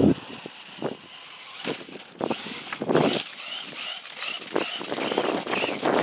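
RC car's electric motor whining in short throttle bursts, its 3D-printed wheels with flexible-filament tyres rolling over grass. From about three seconds in, the whine rises and falls over and over in quick pulses as the car is driven up to a concrete sidewalk.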